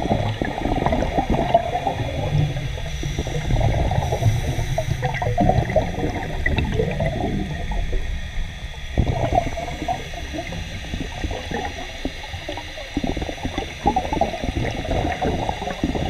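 Underwater scuba sound: a diver's exhaled bubbles gurgling and crackling from the regulator, swelling in rushes every few seconds with each breath.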